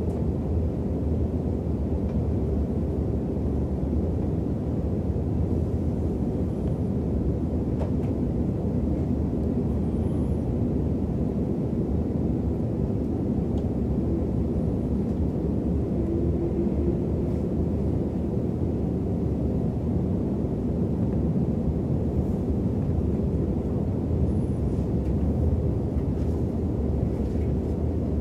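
Steady low rumble of an Intercity train's passenger coach, heard from inside the coach as the train pulls out of the station.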